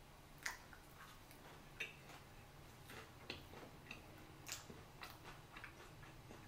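Faint wet mouth clicks and smacks of chewing sushi, about a dozen short sharp ticks at uneven spacing over near silence.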